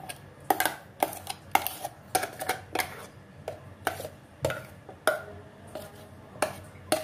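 Repeated sharp clinks and knocks, one or two a second, of a stainless steel container and utensil as thick chocolate ice cream mix is scraped and tapped out into a glass dish.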